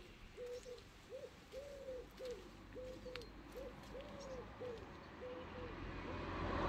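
A bird calling a long, even series of short, low notes, about two a second. Near the end, engine noise grows steadily louder.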